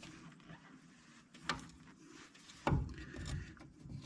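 Metal brake parts and tools being handled during drum brake teardown: light rubbing with two sharp knocks, the second, about two and a half seconds in, louder with a dull thud.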